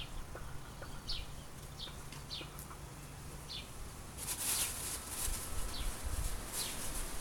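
Small bird chirping, short falling chirps repeated every half second or so, over a low rumble; a rustling hiss sets in about four seconds in.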